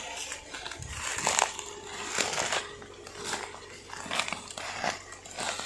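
Dry branches and leaves crackling and snapping irregularly as someone pushes through brush and moves branches aside.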